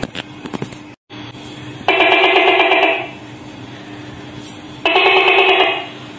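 Tokay gecko calling twice, about three seconds apart, each loud call lasting about a second, over a faint steady hum.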